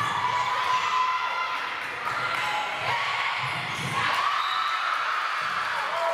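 A volleyball being hit a few times, each a sharp smack, over overlapping voices of players and spectators calling out.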